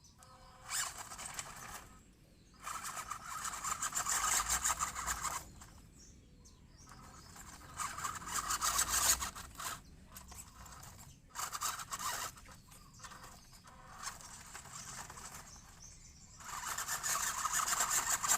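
WPL D12 RC truck's motor and drivetrain run hard in repeated bursts of several seconds, with short pauses between, giving a harsh, high rasping, grinding noise.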